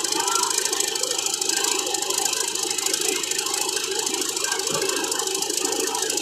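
Combine harvester's diesel engine running steadily with a light mechanical rattle, a smooth, even sound that the owner calls very quiet.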